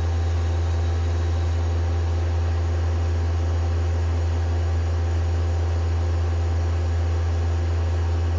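Citizen L12 Swiss-type CNC lathe running: a steady low machine hum with several steady tones and a hiss over it, unchanging throughout.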